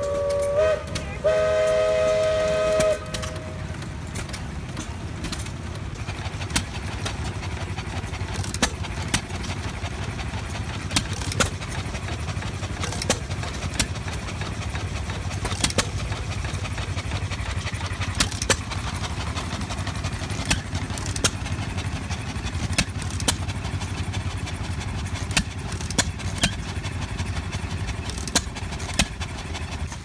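A steam whistle sounds a steady multi-tone chord for about the first three seconds, with a short break near the start, then stops. After that, antique hit-and-miss stationary gas engines run with a steady low rumble and irregular sharp pops as they fire.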